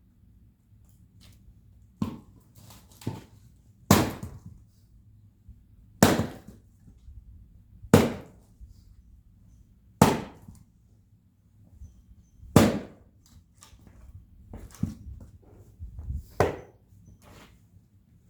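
An axe splitting firewood logs by hand: sharp chopping strikes about every two seconds, some followed by a smaller knock.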